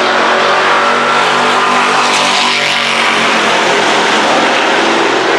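Jet engines of the Shockwave jet-powered Peterbilt semi running loud and steady: a dense rush with several whining tones over it.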